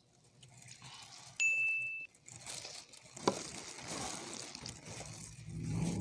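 A single steady electronic beep, about half a second long and cut off abruptly. It is followed by a sharp click and crackly, rustling eating noises as chicken wings are handled and bitten with plastic-gloved hands.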